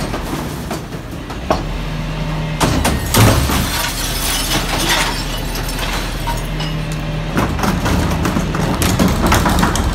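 Rear-loader garbage truck running while its hydraulic bin lifter tips and lowers a commercial recycling bin, with loud clattering and knocking of the bin and falling recyclables, mostly a few seconds in and again near the end. A steady engine hum runs underneath, and a steady tone from the hydraulics comes in twice.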